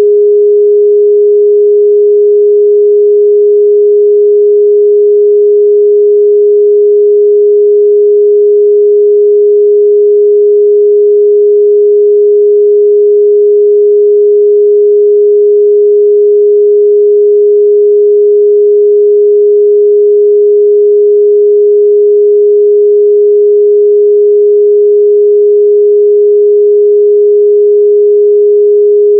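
Steady 414 Hz pure sine test tone, a single unwavering loud hum-like pitch with no overtones.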